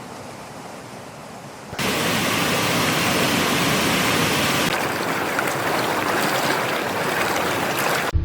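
Running water, a steady rushing noise that gets much louder about two seconds in.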